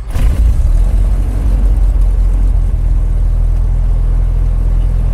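Cessna 172's piston engine and propeller running just after start-up, settling into a steady low-power run.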